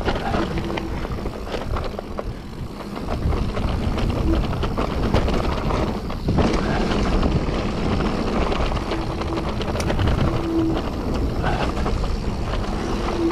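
Mountain bike ridden down a wet trail: a steady rattle and rumble of the bike and its tyres over rough ground. A short, steady whining tone comes and goes several times.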